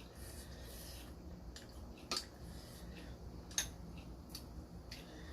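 A few faint clicks and taps of eating utensils on tableware over low room noise, two of them clearer, about 2 and 3.5 seconds in.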